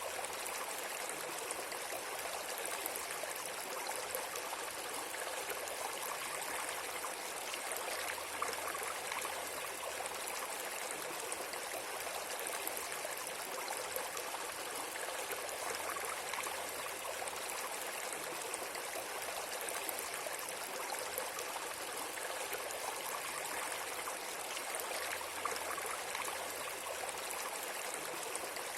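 Steady rushing noise of flowing water, with no breaks or changes, plus a faint low hum that comes and goes underneath.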